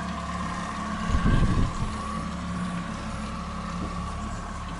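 Outboard motor running steadily at low speed, pushing a boat slowly along. About a second in there is a brief louder sound over it.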